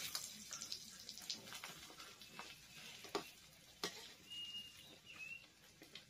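Egg frying in oil in a metal pan with a quiet sizzle, and the occasional clink and scrape of a spatula stirring it against the pan. A short high chirp comes twice, about four and five seconds in.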